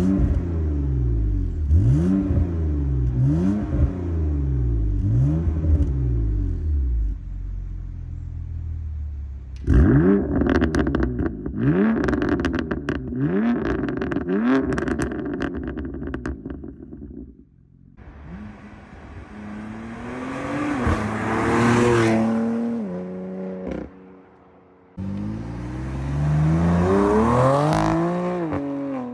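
BMW F80 M3's twin-turbo straight-six through an aftermarket catback exhaust with stock downpipes, revved repeatedly at standstill in quick blips; the second set of revs, about ten seconds in, comes with sharp crackles and pops. Then the car drives past twice, the engine pitch rising and falling as it accelerates by.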